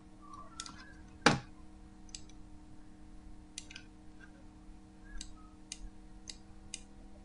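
Computer mouse clicking: about eight short, sharp clicks at irregular intervals, one much louder about a second in, over a faint steady hum.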